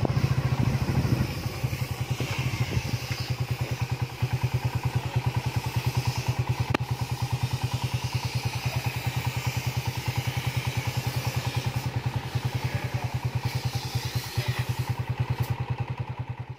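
Motorcycle engine running slowly with a fast, even beat.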